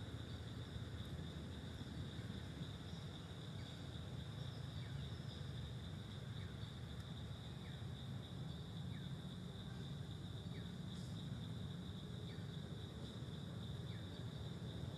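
Forest ambience: a steady high-pitched insect drone over a low steady rumble, with a bird repeating a short falling chirp about once a second.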